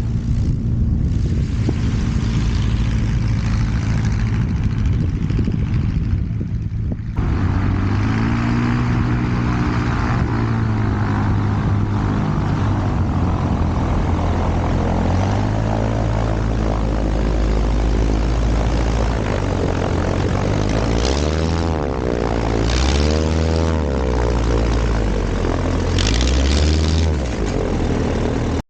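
Kitfox light aircraft's Jabiru engine and propeller droning as the plane flies past at speed. The first several seconds are mostly wind noise. After that the engine tone comes through, bending up and down in pitch, with several sweeping swells near the end.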